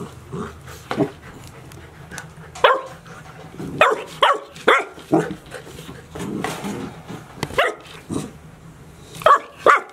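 Golden retriever puppies barking and yipping in play: a dozen or so short, sharp calls, bunched in the middle and again near the end.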